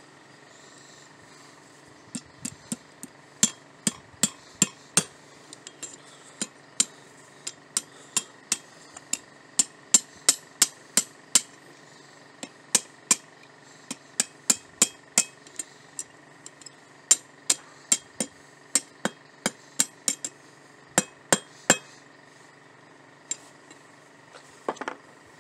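Hand hammer striking a pair of forged tongs on a steel anvil: a run of sharp, ringing metal-on-metal blows, about two a second with short pauses, thinning to a few lighter taps near the end, then a brief scrape of metal on the anvil.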